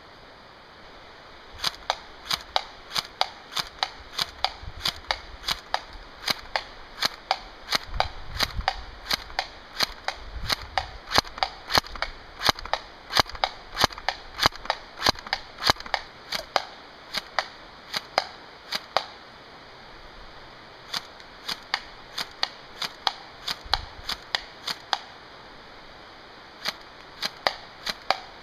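Cyma CM022 AK47 airsoft electric rifle (AEG, plastic gearbox) firing single shots in semi-automatic mode, sharp snapping shots at about two a second with two short breaks.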